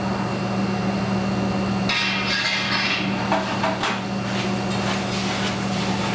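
Food sizzling in a sauté pan on a gas range from about two seconds in, with several knocks and clatters of metal pan and utensils, over the steady low hum of a kitchen exhaust hood.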